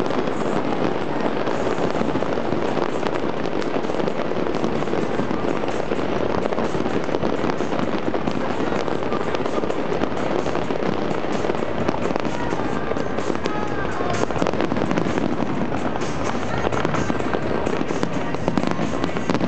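Fireworks display: shells bursting in a dense, unbroken barrage with crackling throughout.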